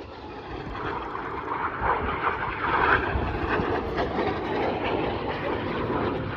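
BAE Hawk T1 jets of the Red Arrows flying overhead: a steady engine rush that grows a little louder over the first few seconds, then holds.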